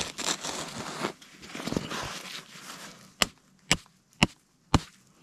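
Steel tent stake being pounded into packed snow over frozen ground, about four sharp blows two a second, starting about three seconds in after some soft rustling. The stake is hitting solid ground a few inches down.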